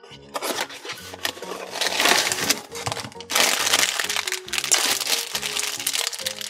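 Black foil blind bag from a Funko Mystery Minis box being crinkled and torn open by hand, the crinkling loudest from about two seconds in, over background music.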